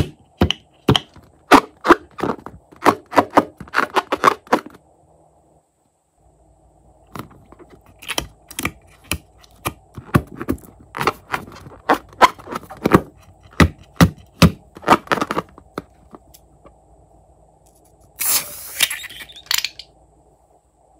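Slime-making handling sounds: two runs of sharp clicks and snaps, with a short rush of noise near the end.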